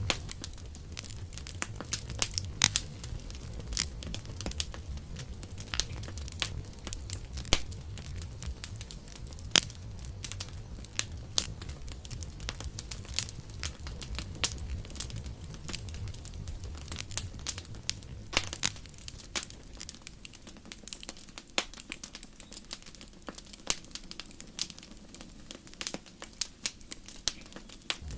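Campfire burning, the wood crackling and popping in frequent, irregular sharp snaps over a low steady rumble of the flames. The rumble fades for several seconds in the second half, then returns near the end.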